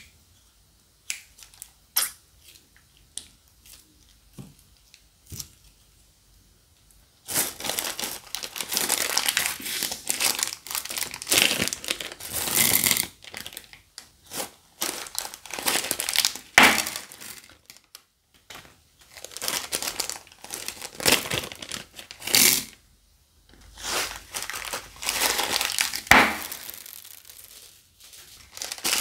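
Plastic slime bags crinkling as they are handled: a few scattered sharp crackles at first, then long dense stretches of crinkling and crackling from about seven seconds in, broken by short pauses.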